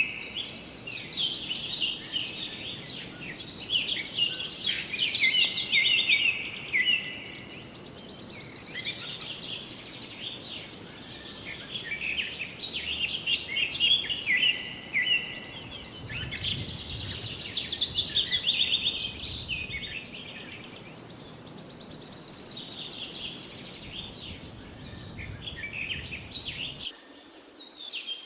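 Songbirds singing and chirping continuously, with a high trilled phrase recurring every several seconds.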